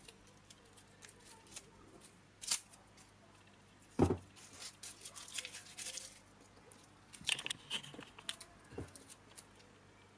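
Hands handling a small car blower motor at a wooden bench: old tape on its wiring crinkling and tearing, with scattered clicks, and one heavy thud about four seconds in as the motor is set down on the wooden bench.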